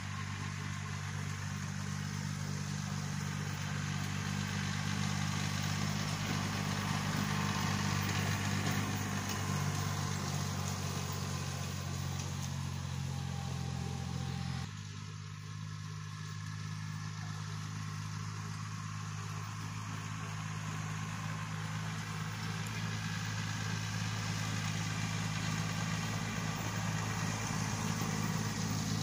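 Yanmar 1610 three-cylinder diesel tractor engine running steadily under load as it pulls a wheel hay rake, growing louder as it approaches. The engine note changes abruptly about halfway through.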